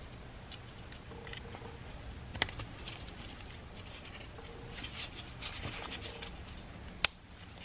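Handling noise from a metal in-line power steering filter being worked in gloved hands: rustling and small ticks, with a sharp click about two and a half seconds in and a louder one shortly before the end.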